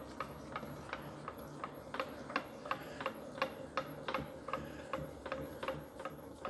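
Steady clicking, about three clicks a second, as the Cincinnati #2 tool and cutter grinder's table is slowly traversed under a dial test indicator. A steady low hum runs underneath.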